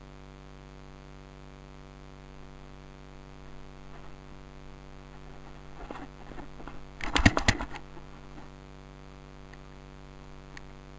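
A brief flurry of sharp clicks and rustling, loudest about seven seconds in, over a steady low hum and hiss.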